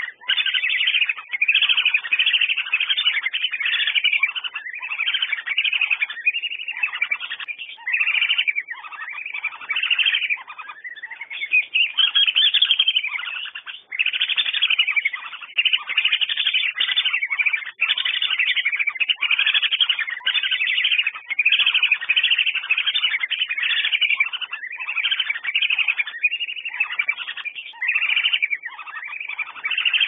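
Whistling ducks (Dendrocygna) calling: a near-continuous series of short, high whistled notes, one after another with only brief gaps.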